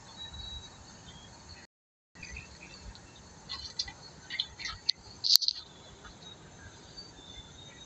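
Lovebirds giving short, sharp, high chirps in a scattered run, bunched about four to five seconds in, with the loudest single chirp just after five seconds.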